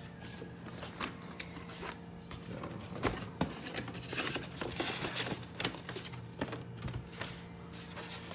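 Cardboard box and paper being handled while a boxed juicer is unpacked: rustling, crinkling and scraping with many small knocks as the box flaps are opened and a printed sheet is lifted off foam packing, busier from about three seconds in.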